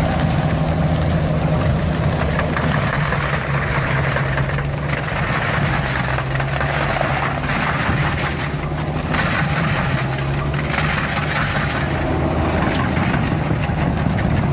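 A heavy machine's engine running steadily under load, with a harsher noise that swells and fades several times over it.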